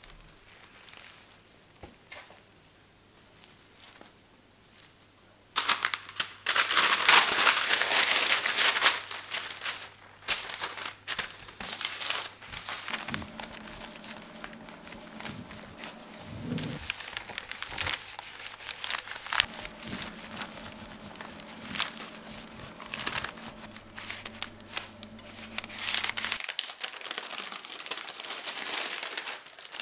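Clear plastic film and a paper napkin crinkling and rustling as they are handled, smoothed flat and pressed with an iron through baking paper. It starts about five seconds in after a fairly quiet stretch, is loudest over the next few seconds, then goes on as a softer, irregular rustle.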